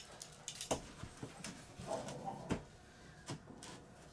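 About half a dozen light knocks and taps of a steel framing square and a hand tool being set down and shifted on a vinyl floor plank. The loudest comes about two and a half seconds in.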